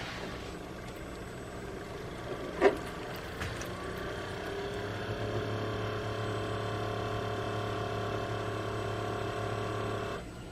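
A sharp click, then a Keurig K-Supreme Plus single-serve coffee maker's pump running through a brew cycle with a steady mechanical hum, which cuts off suddenly near the end.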